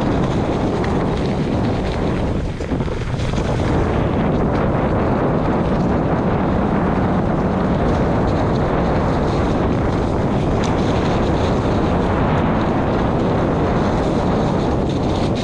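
Wind buffeting the microphone with a steady rumble underneath, as from a camera carried on a fast downhill descent.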